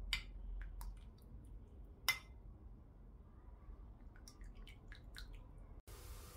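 A metal spoon stirring soup in a porcelain bowl, with a few light clinks of the spoon against the bowl and small liquid sounds; the sharpest clink comes about two seconds in, and a quick run of smaller clinks follows a couple of seconds later.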